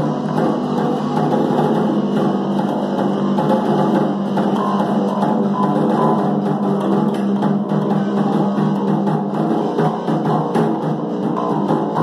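Live band playing an instrumental jam: drum kit, electric bass guitar and electric guitar together, steady and loud throughout.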